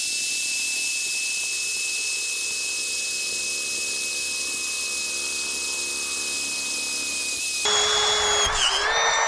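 Handheld electric drill boring a hole through steel, running steadily with a high whine. Near the end the sound grows a little louder and coarser, and the pitch briefly dips under load.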